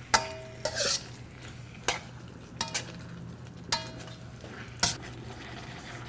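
A metal utensil stirring a saucy stir fry in a stainless steel wok: about half a dozen sharp clinks against the pan, some ringing briefly, over a low sizzle.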